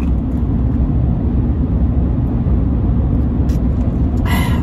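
Steady low rumble of road and engine noise inside a moving vehicle's cabin. Near the end comes a short sip from a drink.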